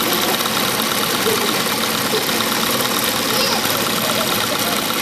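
Atlas AT2284 three-step zigzag industrial sewing machine running steadily at speed, stitching through stretch fabric.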